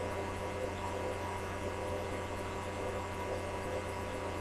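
Steady low electrical hum with a few faint steady higher tones over it, unchanging throughout; nothing else stands out.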